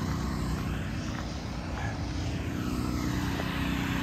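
A steady low engine drone with a hiss of noise above it, from motor traffic or an aircraft.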